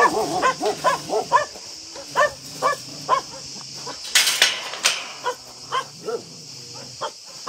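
Dogs barking in a steady run of short barks, about two a second, several overlapping in the first second. A brief burst of noise cuts in a little past four seconds.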